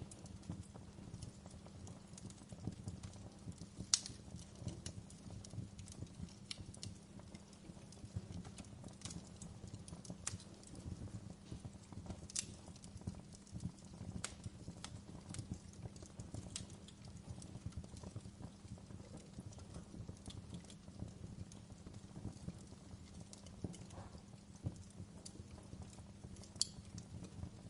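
Wood fire crackling: a dense run of small, low pops, with a sharper snap every so often, the loudest about four seconds in.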